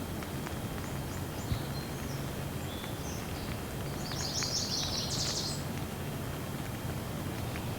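Light rain falling as a steady hiss with scattered faint drips, and birds chirping over it; a short burst of quick, high bird song about four seconds in.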